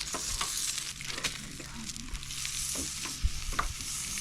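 Food sizzling as it fries: a steady crackling hiss with scattered clicks and scrapes, and one sharp knock about three seconds in.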